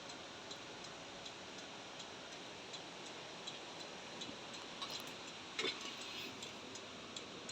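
Steady rapid ticking, nearly three clicks a second, over a faint steady hiss, typical of a Mitsubishi L300's turn-signal or hazard flasher relay working.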